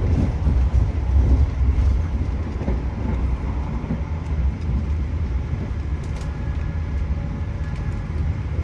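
Argo Lawu passenger train running along the line, heard from inside the carriage: a steady low rumble of wheels on rail, with a few faint clicks.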